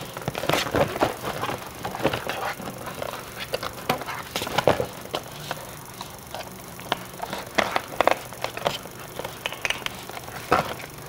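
Irregular rustling, crinkling and small clicks of plastic and cardboard toy packaging as hands work a doll free from its box insert and ties.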